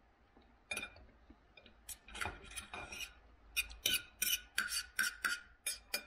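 Knife and fork scraping and clinking on a plate while cutting food: a few scattered strokes at first, then a quick run of short scrapes, about two or three a second, through the second half.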